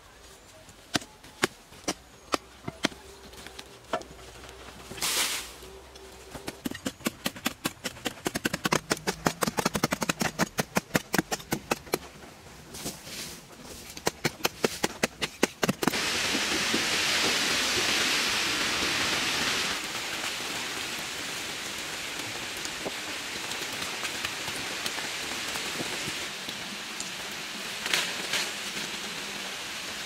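Hand digging tools striking hard earth: a few scattered blows, then a quick run of strikes at about four a second. About halfway through, a steady rushing hiss starts suddenly and carries on, loudest for its first few seconds.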